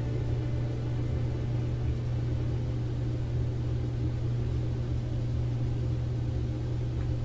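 A steady low hum with a rumble beneath it, unchanging throughout.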